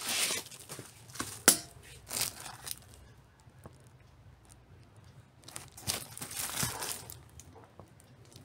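Plastic sleeve crinkling and cardboard LP jacket rustling as a vinyl record is slid out and turned over, in short bursts with a sharp click about one and a half seconds in and a quiet spell in the middle.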